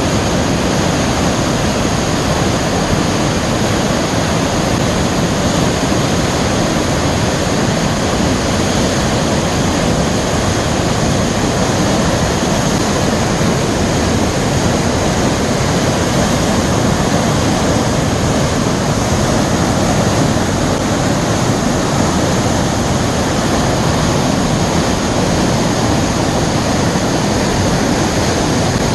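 Waterfall swollen with heavy rain: steady, loud rushing of water pouring over the falls and churning the plunge pool.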